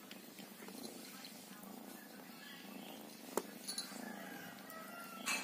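Domestic cat purring steadily, close up. A sharp click comes about three and a half seconds in and a louder one near the end.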